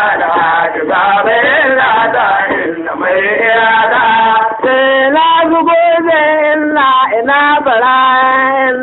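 A man singing a Hausa traditional song in a chant-like style. In the second half he holds long notes that bend in pitch at their ends.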